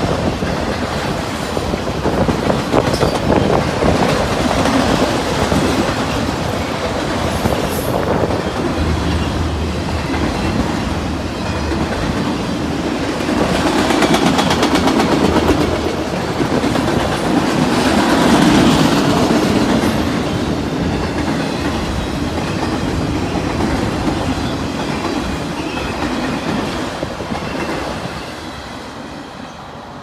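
Freight train of enclosed autorack cars rolling past close by: a steady rumble and clickety-clack of steel wheels over the rail joints. It swells louder twice midway and fades near the end as the last car goes by.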